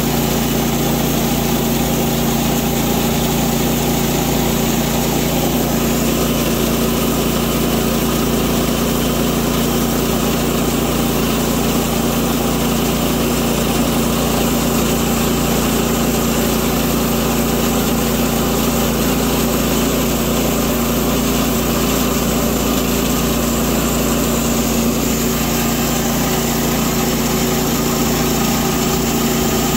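Portable bandsaw sawmill running steadily under load, its engine holding an even note as the band blade cuts lengthwise through a cant.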